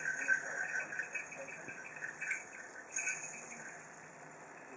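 Small metal jingle bells hung on plastic chains jingling in irregular bursts as a peach-faced lovebird climbs among them, busiest in the first second and again about three seconds in.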